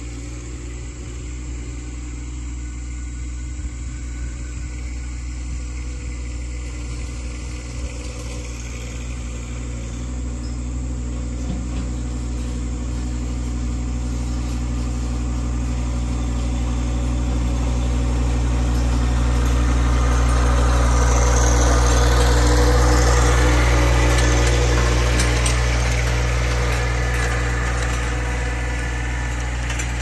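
Compact tractor's engine running steadily as it pulls a roller crimper across a grass food plot, growing louder as it approaches and passes close about two-thirds of the way in, then fading as it drives away.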